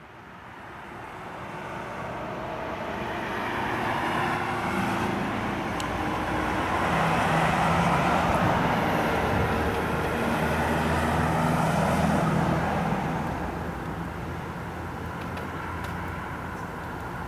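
Distant rumbling roar with a low hum, building to its loudest around the middle and easing off near the end.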